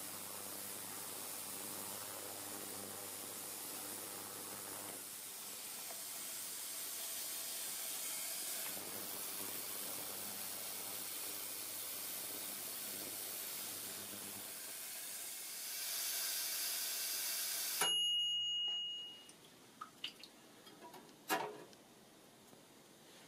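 Ultrasonic cleaner bath running, a steady fizzing hiss from the cleaning fluid with a low hum underneath that drops out and comes back. About eighteen seconds in it cuts off with a click, followed by a few light clinks as the wire basket is lifted.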